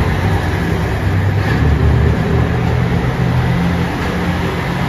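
JR Shikoku 2600 series limited-express diesel railcar pulling out of a station, its diesel engines running under power with a steady low drone over the rumble of the wheels.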